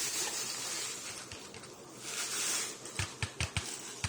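Handling noise: a brief rustle, then a quick run of about five light knocks near the end.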